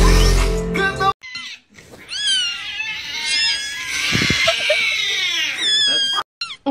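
A kitten meowing and crying loudly in a string of high-pitched calls that fall in pitch. Music stops about a second before the calls start.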